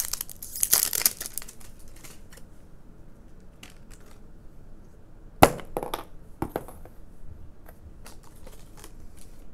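Plastic slime tub being opened: a snap and about a second of crinkling from the lid and plastic film at the start. About five and a half seconds in comes one sharp smack, the loudest sound, followed by a few softer clicks as the jiggly slime is turned out onto the table.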